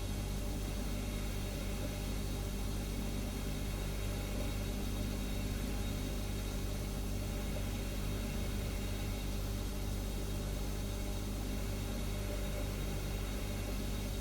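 Refrigerator humming steadily: a constant low drone with a faint even hiss over it, unchanging throughout.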